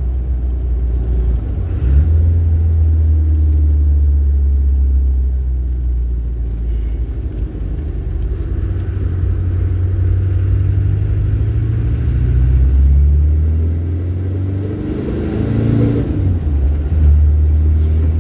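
Turbo-diesel vehicle engine and road noise while driving, a steady low drone whose pitch shifts a few times.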